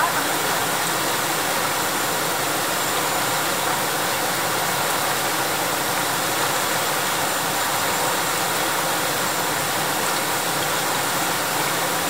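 Fast, shallow river water rushing over rapids: a steady, even rush.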